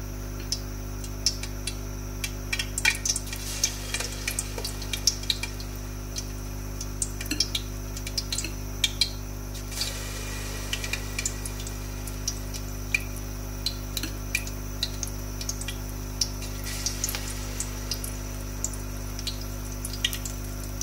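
Dahi bara batter of ground chana, mash and moong dal frying in hot oil in a kadhai, sizzling with many irregular crackles and pops as more spoonfuls are added.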